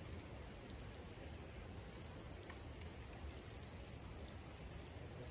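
Faint, steady rush of creek water flowing around a wading angler.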